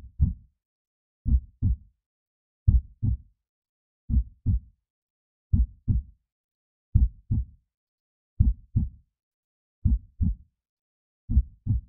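Heartbeat sound effect: a slow, steady lub-dub, pairs of low thumps repeating about every second and a half, roughly nine beats in all, with silence between them.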